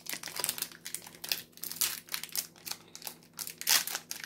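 Foil booster-pack wrappers of trading cards crinkling as they are handled, in quick, irregular rustles.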